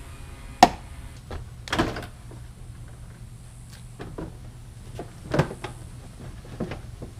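Irregular sharp plastic clicks and knocks as a car's front bumper cover is pulled loose from its clips, the loudest a sharp snap about half a second in and a cluster just before two seconds.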